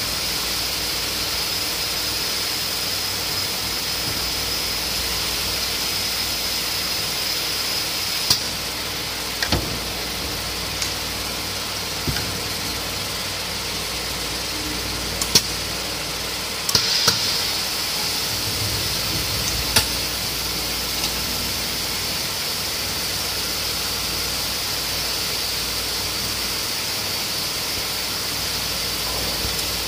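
Valve seat boring machine working on a cylinder head's valve seat: a steady motor hum with a high whine, broken by a few sharp metallic clicks and knocks in the middle as the cutter is set into the seat and worked.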